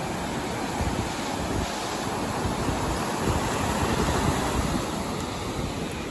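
Ocean surf breaking and washing up the beach, with wind buffeting the microphone; the wash swells a little about three to four seconds in.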